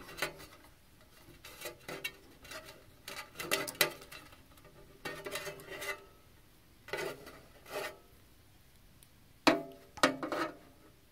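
Scattered clicks and short metallic clinks of hands handling the metal frame and end-stop wiring of an FLSun QQS-Pro delta 3D printer's tower, with the two sharpest clinks near the end.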